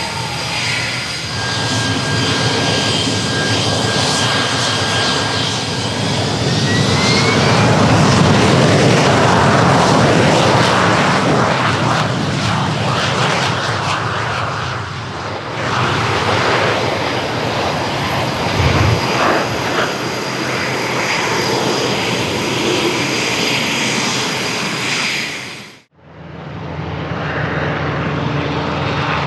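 AV-8B Harrier II's Rolls-Royce Pegasus turbofan whining, the whine rising in pitch about six seconds in, then a loud jet roar as the jet rolls down the runway. After a sudden cut near the end, a Westland Sea King Mk.48 helicopter's rotor and turbines run steadily.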